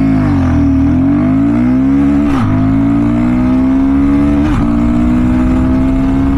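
Royal Enfield Guerrilla 450's single-cylinder engine under a full-throttle launch from standstill, revs climbing hard through the gears. Quick upshifts break the climb about two and a half and four and a half seconds in, the pitch rising again after each.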